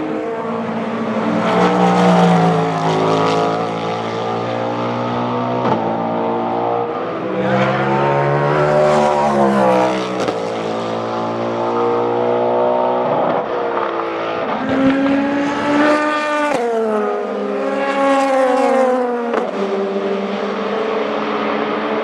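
Several race cars passing one after another at full speed. Each engine rises in pitch as it accelerates through the gears, then drops in pitch as it goes by.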